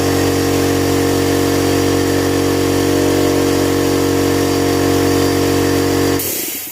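17-gallon electric air compressor running steadily under load, filling a linked extra tank. About six seconds in it shuts off with a short hiss of released air: the compressor has reached its cut-out pressure of about 125 psi.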